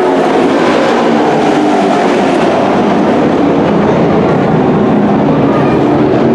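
Several dirt-track race truck engines running hard at speed, their overlapping engine notes steady and loud.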